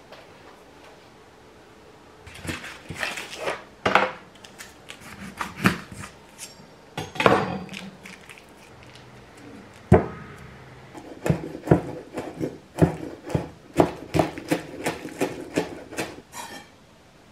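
Kitchen food-prep handling: rustling and clattering of packaging and dishes, with a sharp knock about ten seconds in. From about eleven seconds in, a kitchen knife chops green onions on a wooden cutting board in steady strokes, about two to three a second.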